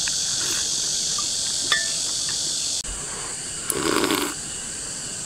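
Steady high-pitched chorus of insects, which shifts and quietens about three seconds in; a brief slurp of broth sipped from a metal ladle about four seconds in.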